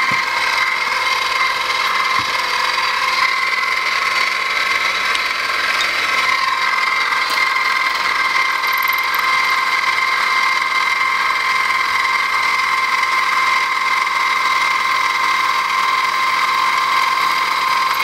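Bench mill's spindle running at a steady whine as a small drill bit cuts into a brass padlock body, drilling out the sealed cap over a pin chamber.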